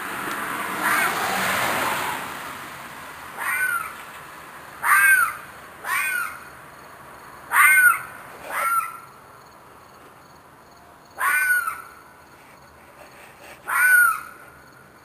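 An animal screaming outside at night: seven short, harsh screeching cries, each rising and then falling in pitch, spaced one to three seconds apart, after a brief rushing noise at the start. The recordist takes it for a fox or a coyote and thinks the animal is in distress.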